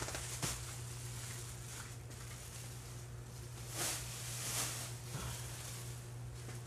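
A few soft, brief rustles over a steady low hum.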